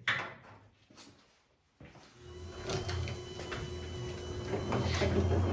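Clunks and knocks from a tractor-mounted snowblower attachment being handled, one at the start and another about a second in. About two seconds in this gives way to a steady low hum with scattered clicks.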